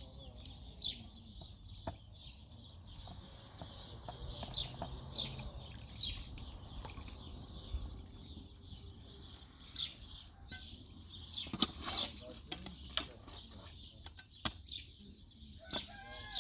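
Small birds chirping over and over, short high chirps about once a second, with a few sharp clicks in between. Near the end a chicken starts calling.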